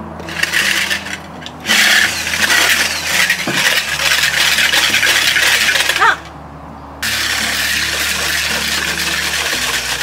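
Electric hand-held whisk running in a glass bowl, whipping egg whites into meringue. It starts with a short burst, runs steadily, cuts out about six seconds in and starts again about a second later.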